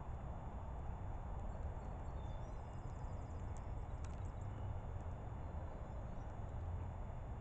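Faint, high chirps and twitters of small birds, with a short rapid run of ticks, over a steady low rumble of background noise.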